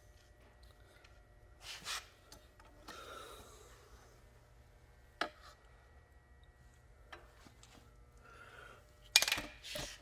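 Quiet handling sounds: soft rubs and a few light clicks, with a sharp click about five seconds in and a louder clatter near the end.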